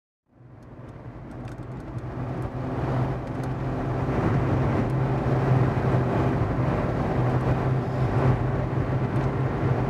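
A steady low mechanical hum over a rushing noise. It fades in over the first few seconds, then holds steady.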